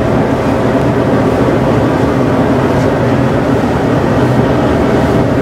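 Loud, steady machine rumble with a constant low hum, unchanging throughout.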